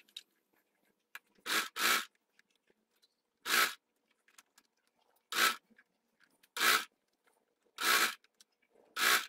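Electric sewing machine stitching in short bursts, each a quick rattle of a few stitches, about seven of them with pauses between as the padded mitt is turned under the needle.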